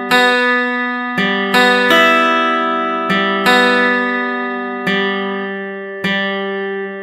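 Background music: an acoustic guitar playing chords, each struck and left to ring and fade, a new one about every second.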